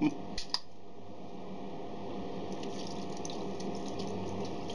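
Beer being poured over potatoes in a baking pan, a steady trickling pour that starts about two seconds in, after a couple of short clicks.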